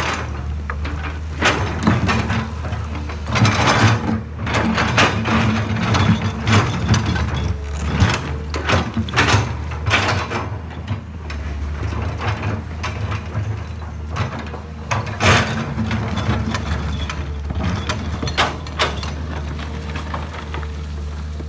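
Komatsu PC200-8 hydraulic excavator digging in rocky soil: its steel bucket scraping and clattering against stones over the steady running of its six-cylinder diesel engine. The clatter thins out near the end, leaving mostly the engine.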